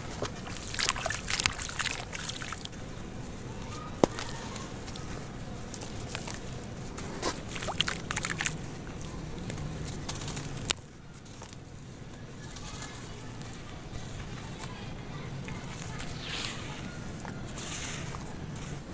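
Dry clay chunks crumbled by hand, with gritty crackling crunches in bursts and a sharp snap a few seconds in. Later, soft wet sloshing and squelching as soaked clay is broken and squeezed in muddy water.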